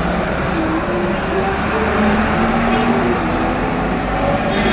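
Large trucks running past on a toll road: a steady, loud low engine rumble with traffic noise.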